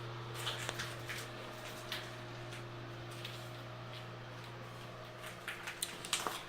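A steady low machine hum, with scattered light taps and clicks.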